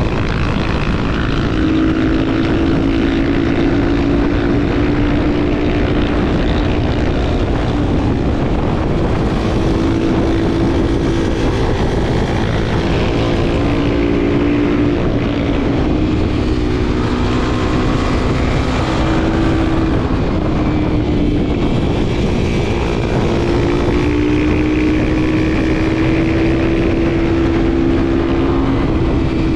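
Honda XR250 Tornado's single-cylinder four-stroke engine running under way at a fairly steady pitch, easing off briefly a few times. Dense rushing noise runs underneath it.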